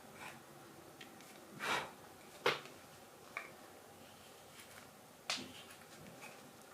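Carving knife slicing green wild cherry wood in four separate crisp cuts; the loudest is a sharp snap of a cut near the middle, just after a longer shaving stroke.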